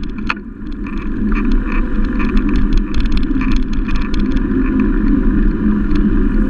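Steady wind and road rumble from riding a bicycle, picked up by a handlebar-mounted camera, with frequent irregular rattling clicks as the bike rolls over the rough road surface.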